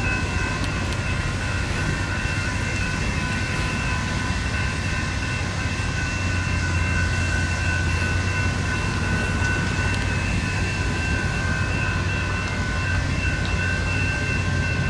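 Railroad grade-crossing warning bells ringing continuously over a low rumble that grows louder about six seconds in.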